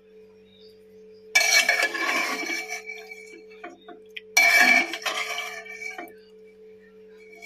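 Metal spoon scraping and clinking against the pot while stirring a thick mutton and potato curry, in two bouts of about a second and a half each. A steady low hum runs underneath.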